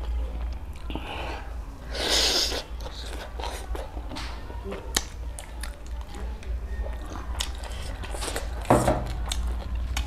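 Close-miked eating sounds: chewing and wet mouth clicks and smacks as dhido and mutton curry are eaten by hand, with two louder noisy swells about two seconds in and near the end, over a steady low hum.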